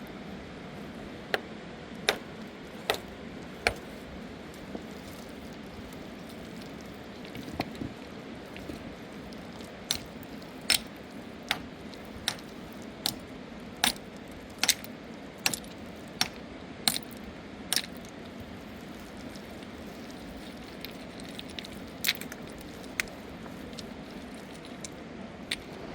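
A series of sharp clinks or knocks, coming about one every 0.8 s through the middle stretch and scattered before and after, over a steady rush of river water.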